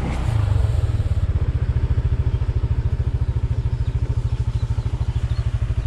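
Motorbike engine running at low revs, settling into an even, rapid put-put pulse shortly after the start.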